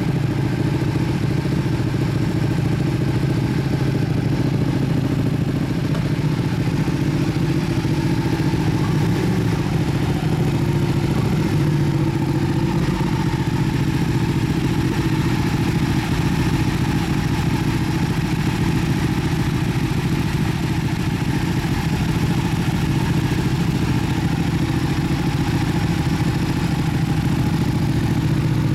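Two sport-bike engines idling steadily together: a Ducati 1299 Panigale S's 1285 cc L-twin and a Yamaha YZF-R1's 1000 cc inline-four.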